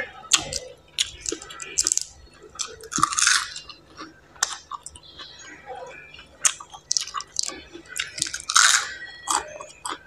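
Close-up chewing and crunching of crisp raw cabbage leaves, irregular sharp crackles with wet mouth sounds, and two louder crisp crunches about three seconds in and near the end.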